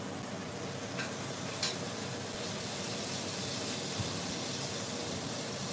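Fish frying in a covered frying pan: a steady sizzle, with a few faint clicks about one and one and a half seconds in.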